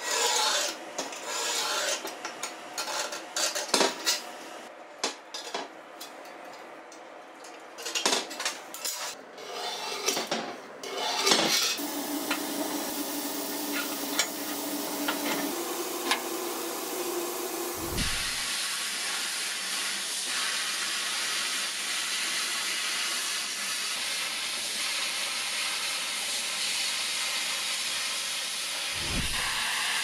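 Workshop handling noises: light knocks and scraping of metal parts, then a steel scriber scratching lines into a steel plate. About two-thirds of the way through, a steady hiss starts suddenly and keeps going.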